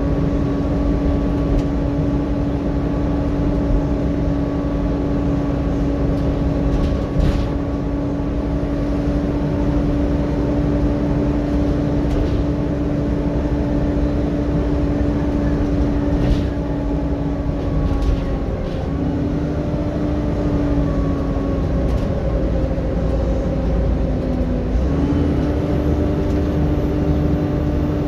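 Volvo B7TL double-decker bus under way, heard from inside the saloon: a deep diesel rumble with a steady whine from the engine's cooling fan, the pitch dipping and shifting briefly about two-thirds of the way through before settling again. A couple of short rattles from the bodywork stand out.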